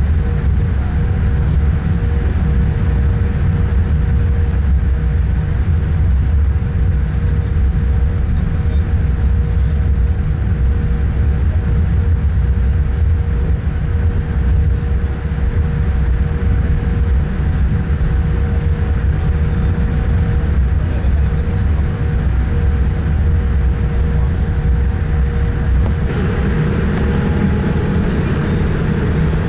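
Cabin noise of a Boeing 787-9 taxiing: a loud, steady low rumble of the airliner rolling along the taxiway with its engines at idle, and a faint steady hum over it. Near the end a higher hiss grows louder.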